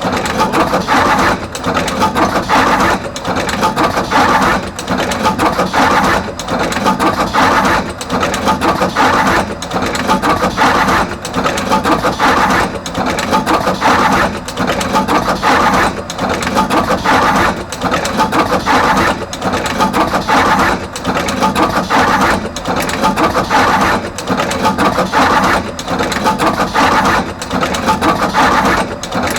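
Artos CR22 automatic wire cut, strip and crimp machine running production, cycling steadily about once every one and a half seconds as it crimps terminals onto both ends of each wire.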